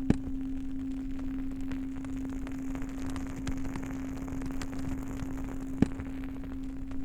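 Bonfire crackling with scattered small pops and two louder snaps, over the steady hum of a low singing bowl.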